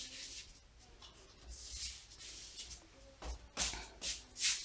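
Rustling and shuffling of a small child moving about among coats, bags and shoes. The rustles are soft in the first half and come sharper and closer together toward the end.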